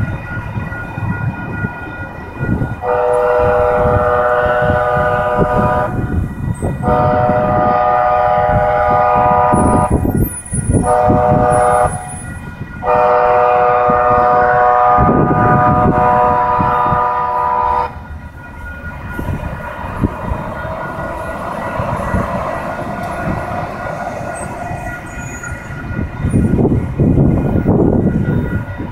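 A two-car train sounds its horn in the grade-crossing pattern of long, long, short, long, then rumbles and clatters past on the rails.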